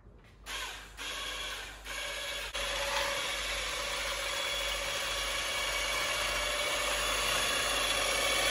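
Electric whisk whipping egg whites in a bowl: a few short starts, then a steady continuous run that grows slowly louder as the whites foam up.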